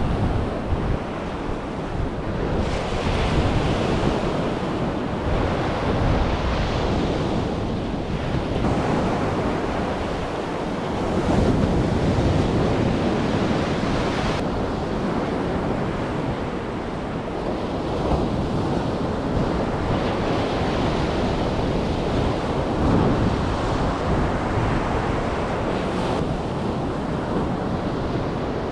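Surf washing onto a beach with wind buffeting the microphone: a steady rush that swells and eases, loudest about eleven seconds in.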